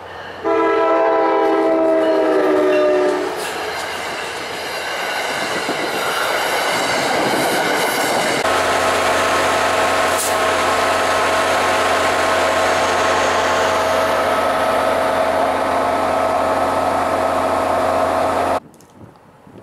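A diesel commuter train sounds its air horn as one chord of several notes, starting about half a second in and lasting about three seconds. It then rolls in with steady rail noise. About halfway through, the locomotive's steady drone with a hum takes over and holds until the sound cuts off sharply near the end.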